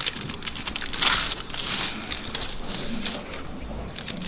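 Aluminium foil wrapper of a Schogetten chocolate bar crinkling and crackling as it is pressed, unfolded and peeled back from the chocolate. The crinkling is loudest in the first two seconds and softens near the end.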